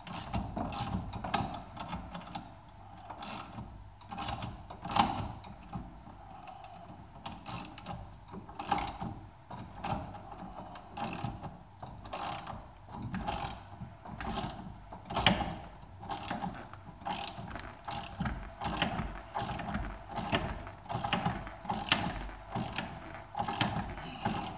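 Ratchet wrench clicking through repeated strokes as it tightens a ball joint separator on a classic Mini's suspension joint, loading the joint up before it pops apart.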